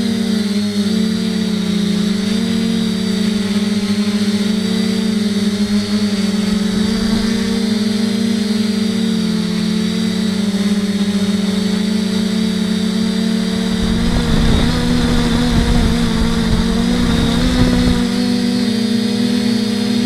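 FPV quadcopter's electric motors and propellers whining steadily, the pitch wavering a little as the throttle shifts. A low wind rush on the microphone comes in for a few seconds past the middle.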